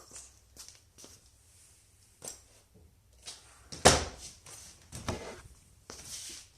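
Handling noise: scattered clicks, knocks and rustles, the loudest a thump about four seconds in.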